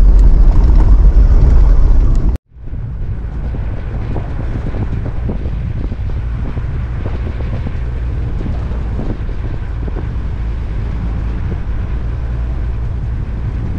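A four-wheel drive driving along a sandy bush track: steady low engine drone with wind noise on the microphone. It cuts off suddenly about two seconds in and picks up again as a quieter stretch of the same drive.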